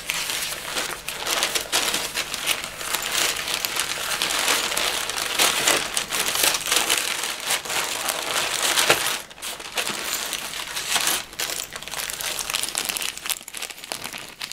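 Thin grey packing paper crumpling and rustling as it is handled and pulled out of a cardboard box, a dense continuous crackle that thins out after about nine seconds.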